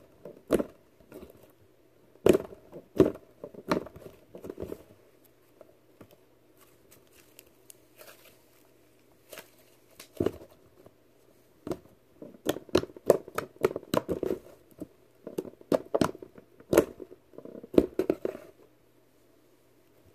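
Soft serve slime being squished and pressed by hand, giving irregular sharp clicks and pops. The clicks are sparse for a few seconds in the middle and come thick and fast in the second half.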